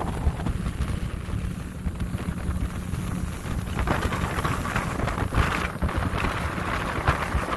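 Newly installed Mercruiser 260 V8 sterndrive engine running under way on a test run, a steady low rumble mixed with wind buffeting the microphone; the wind and water rush grow stronger about halfway through.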